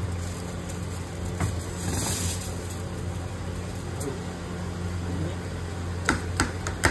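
Steady low mechanical hum, and about six seconds in a metal spoon starts clinking and scraping against a stainless steel bowl as avocado is mashed in it.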